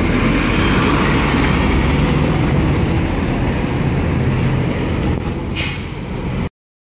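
City bus engine running as the bus drives past, amid street traffic: a steady rumble that fades a little and then cuts off abruptly near the end.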